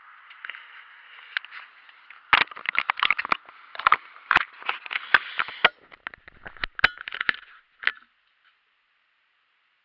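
Handling noise of a small camera being adjusted by hand: a rapid run of clicks, taps and knocks, sparse at first and dense from about two seconds in, stopping abruptly near the end.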